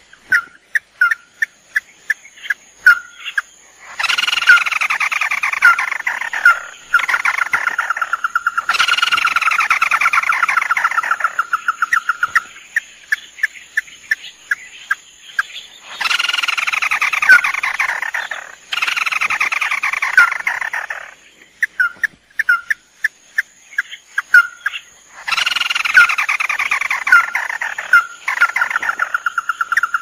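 Ruddy-breasted crakes, male and female, calling on a lure-call recording: runs of short, sharp single notes, broken four times by long, descending rattling trills.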